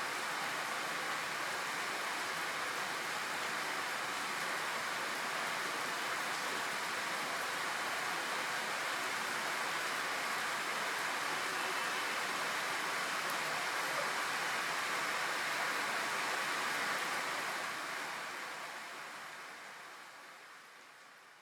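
Steady hiss of falling rain that fades out over the last few seconds.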